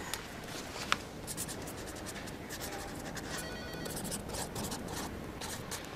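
Pen writing on paper on a desk: a run of quick scratchy strokes, with one sharp click about a second in.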